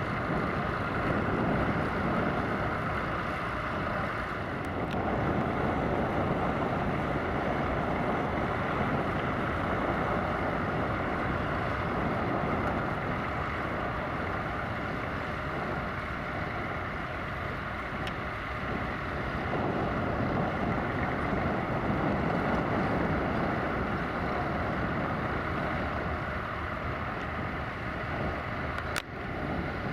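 Vintage tractor engine running steadily while ploughing, with wind rumbling on the microphone. A sharp click about a second before the end.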